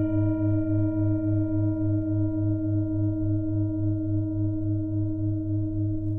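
A struck singing bowl ringing on with a slow, even wavering of about three pulses a second, fading slowly.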